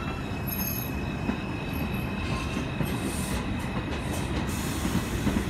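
R142 subway train pulling out of an elevated station, its wheels rumbling steadily on the rails with a faint high wheel squeal. Several short bursts of high hiss come in the second half.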